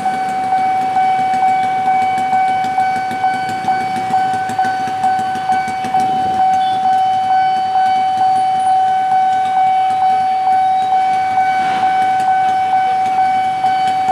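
Railway level-crossing warning alarm sounding continuously, a steady electronic tone pulsing about twice a second, with the gates down for an approaching train.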